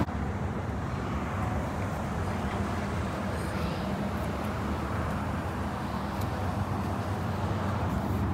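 A steady low rumble of motor traffic, with a faint engine hum under it.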